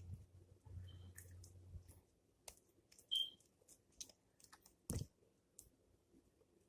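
Homemade glue slime being kneaded by hand: faint, scattered sticky clicks and wet smacks. A short high beep sounds about three seconds in.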